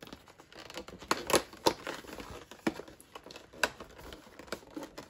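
Cardboard advent-calendar door being prised with fingernails and torn open along its perforations: scratchy crinkling of card with several sharp clicks and snaps.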